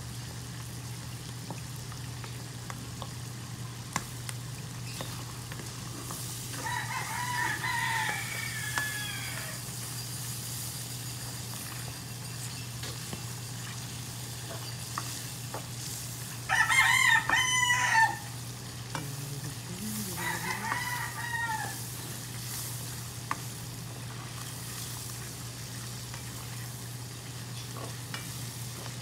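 Sliced mushrooms and onions sizzling in oil in a stainless steel wok over a gas flame, stirred with a black spoon that clicks now and then against the pan. Three loud pitched animal calls cut in, about seven, sixteen and twenty seconds in, the middle one loudest.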